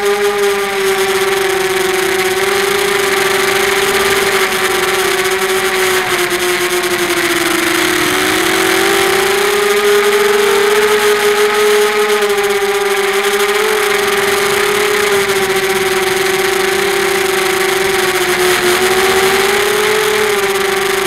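Quadcopter's brushless Sunnysky 2300KV motors spinning 5x4 propellers, a loud steady whine picked up by the drone's own onboard camera, its pitch wavering with the throttle and dipping briefly about eight seconds in.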